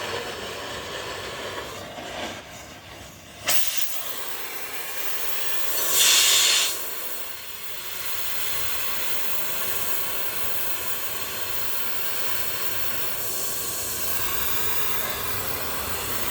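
Oxy-acetylene gas welding torch hissing steadily. A sharp crack comes about three and a half seconds in, and a brief louder rush of gas about six seconds in.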